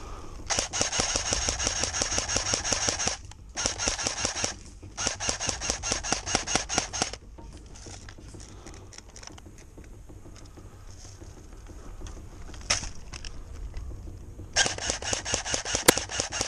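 Airsoft electric M14 rifle firing rapid full-auto bursts, the motor whining under a quick string of clacks: three bursts of one to two and a half seconds in quick succession, then after a pause a single sharp snap and a last burst near the end.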